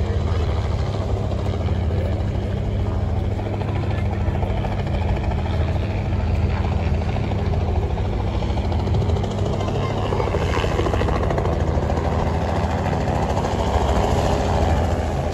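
Helicopter running steadily nearby, a continuous low rotor and engine rumble.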